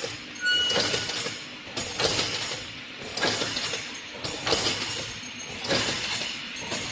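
Hexagonal gabion wire mesh weaving machine running: metallic clattering and clinking that surges in a regular cycle about every second and a quarter.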